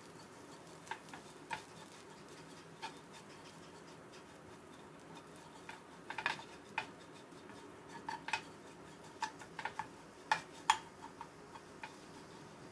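A spatula stirring small dried anchovies in a nonstick frying pan: irregular clicks and taps of the spatula against the pan, sparse at first and coming in quick clusters from about halfway through.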